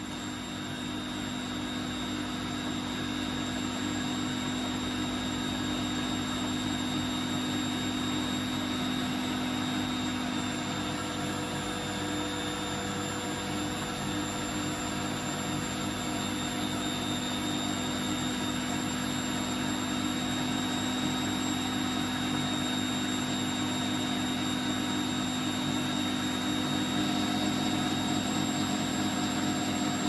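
Electric motor of a homemade magnetic water heater, spinning neodymium magnets around a copper pipe, running steadily: a constant hum with a high whine on top, growing a little louder over the first few seconds.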